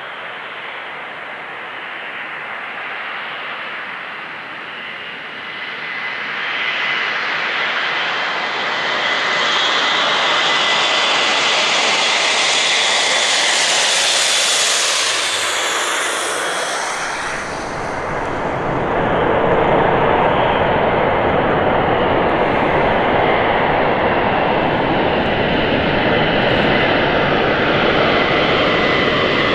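Airbus A400M Atlas's four turboprop engines and propellers droning, growing louder as it comes in low. About halfway through, the pitch falls away as it passes, and then a steady, deeper drone with more low rumble follows as it approaches head-on.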